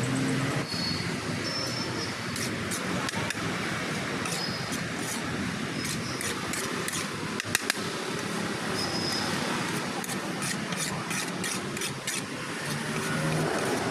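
Metal spatula repeatedly tapping and scraping on a large flat iron griddle (tava) as aloo tikki chaat filling is chopped and mixed, a rapid run of sharp clicks with one louder knock midway, over steady street noise.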